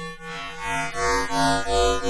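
FM synthesizer patch: a pulsing sound comes in about half a second in, with a deep bass throb under several upper tones that sweep with each pulse, about three pulses a second.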